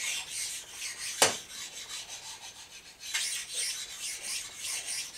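Coarse side of a diamond bench stone rubbed in repeated strokes along the cast-iron ways of an Atlas 10F lathe, a rasping scrape with each stroke, stoning down dings and raised spots. A single sharp knock comes about a second in, then a quieter spell before the strokes pick up again about three seconds in.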